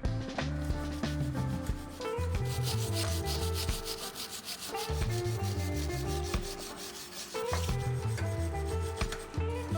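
Background music with a stepping bass line, mixed with a rubbing, scraping workshop sound that is strongest through the middle of the stretch.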